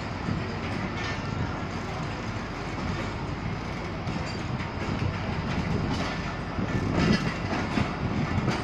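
Pakistan Railways passenger coaches rolling past the platform: a steady rumble of carriages on the track, with the wheels clicking over the rail joints, growing a little louder about seven seconds in.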